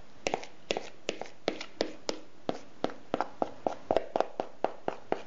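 A quick, uneven run of light knocks and taps, about four a second, as thick curd batter is scraped out of a plastic mixing bowl into a glass pie dish.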